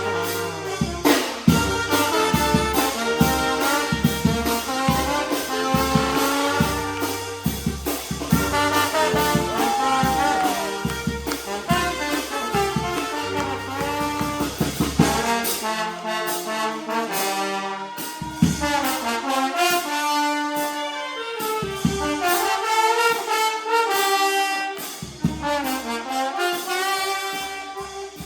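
Charanga brass band playing an EDM tune: trumpets and trombones carry the melody over a steady drum beat. The low bass drops out for stretches in the second half.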